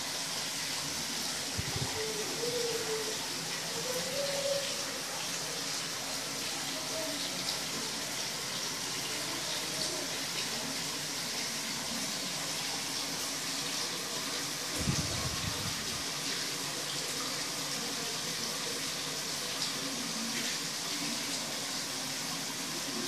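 Steady rush of running water pouring into the tub that holds newly imported koi while they are acclimatised.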